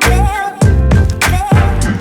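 Background music: a track with a drum hit about every half second and a wavering melody line over it.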